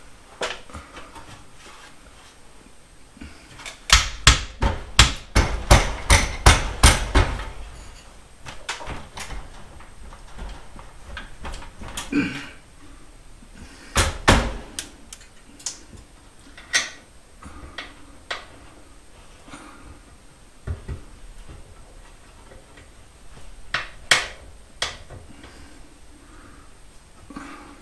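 Sharp knocks from the folding attic ladder's hardware being worked into alignment: a fast run of about a dozen blows lasting a few seconds, then single knocks every few seconds.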